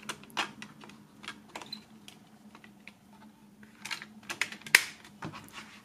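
Light plastic clicks and taps as discs are pressed back onto the centre hubs of a digipak's plastic disc trays, scattered at first, with a quick run of sharper clicks about four to five seconds in.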